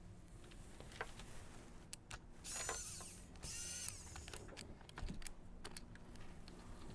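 Small #00 Phillips screwdriver turning screws out of a PSP's plastic casing: two short squeaks of the screw turning, with a few light clicks of the tip in the screw heads.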